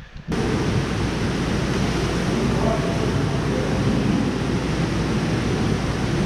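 Steady rushing noise of a fish hatchery's spawning room, the kind of sound made by running water and equipment, with a low hum underneath. It starts abruptly a moment in and stays even throughout.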